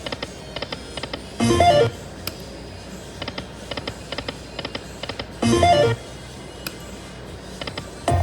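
Slot machine game sounds: runs of quick clicks as the reels spin and stop, and two short electronic chimes about four seconds apart, one per spin.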